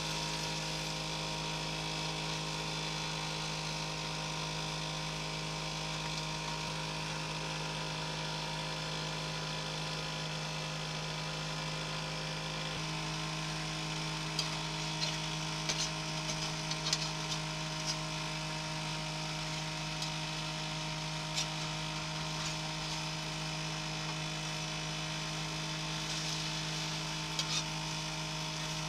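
Eggs and vegetables sizzling in a cast iron skillet over a steady low hum. A metal spatula scrapes and clicks against the pan several times about halfway through, once more a few seconds later, and again near the end.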